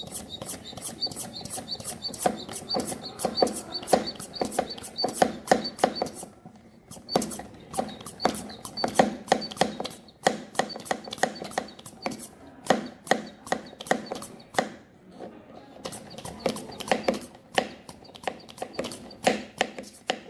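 Hand-operated plunger vacuum pump on a food-storage canister, worked in quick strokes that give a run of sharp clicks several times a second, with a few short pauses. The air is being pumped out of the jar.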